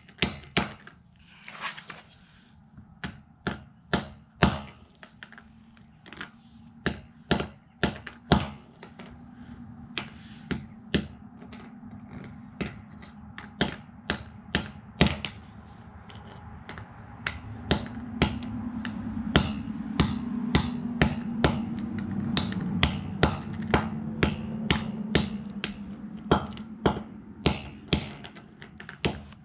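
A claw hammer repeatedly striking a small plastic Bluetooth speaker on a concrete floor: sharp knocks, one or two a second, dozens in all. A low steady hum rises in the background through the middle.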